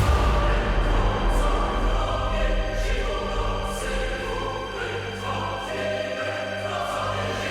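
Epic orchestral music with a choir singing over a deep sustained bass and bright percussive hits.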